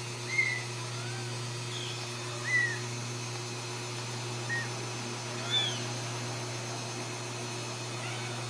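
Young Ragdoll kittens mewing: several short, high-pitched mews a second or two apart, over a steady low hum.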